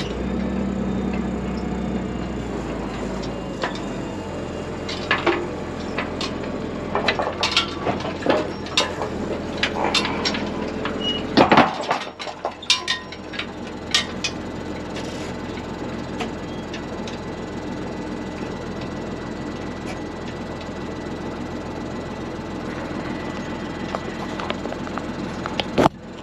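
Tractor engine running steadily, with a string of sharp knocks and clicks through the middle.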